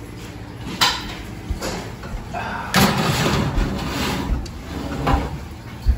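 A metal pizza pan and the wire oven rack knocking and scraping as the pan is slid into an oven: a couple of sharp knocks, then a longer clatter about three seconds in, and another knock near the end.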